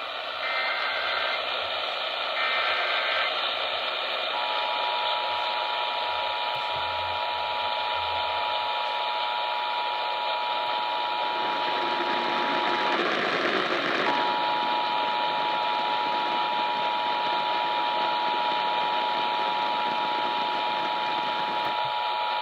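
Emergency Alert System test received over a radio with heavy static hiss: two short warbling data bursts of the alert header, then the steady two-tone EAS attention signal. The tone drops out for about a second midway and comes back.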